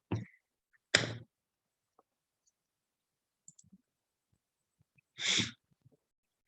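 A quiet pause with two short human sounds: a brief voice sound about a second in, and a short breathy noise about five seconds in.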